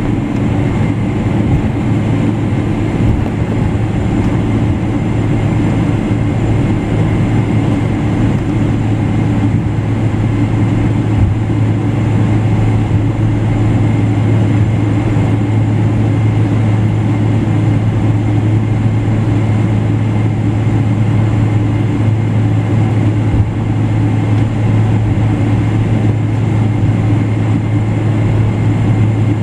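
Boeing 777-200LR's GE90 turbofan running steadily at low power, heard through the cabin: an even drone with a strong low hum and no spool-up.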